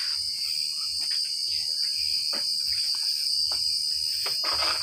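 Crickets chirping in a steady, high-pitched trill, with a few light clicks and taps as metal engine parts are handled.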